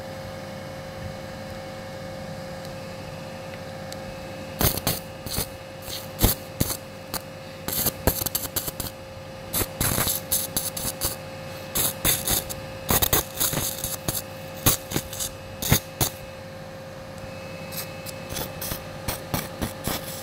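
Irregular clusters of short scraping, crackling bursts of handling noise from surgical instruments and drapes, starting about four seconds in, over a steady faint tone.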